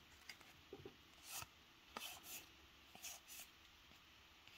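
Faint swishes of cardboard trading cards sliding against one another as a pack of Topps Heritage baseball cards is flipped through by hand, about seven short strokes over near silence.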